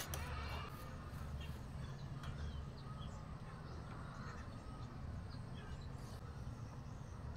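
Quiet outdoor background: a steady low rumble with faint, scattered bird chirps.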